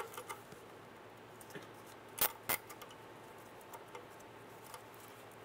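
A nylon zip tie being fed and pulled tight around oxygen sensor wiring: faint plastic ticks, then two sharp clicks about a third of a second apart a little over two seconds in.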